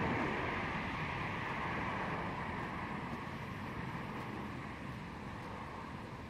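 Steady outdoor rushing noise with no distinct events, gradually growing quieter.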